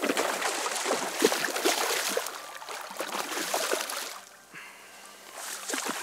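Water splashing and sloshing, irregular and loud for about four seconds and again briefly near the end, as a hooked sea trout thrashes at the surface against a bent spinning rod.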